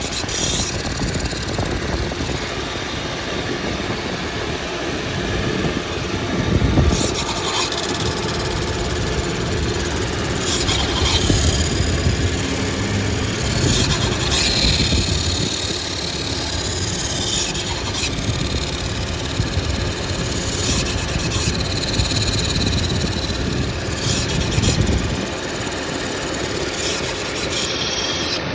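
1999 Volkswagen Passat GLX's 2.8-litre V6 running with an unexplained weird noise over it: an uneven rushing noise that swells briefly several times.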